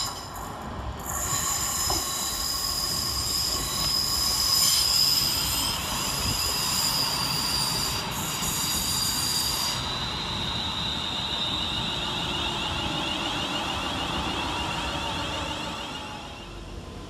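Class 350 Desiro electric multiple unit running into the platform, with high-pitched squealing from its wheels and brakes as it slows for the stop. The squeal gives way to a steady high whine about ten seconds in, fading near the end.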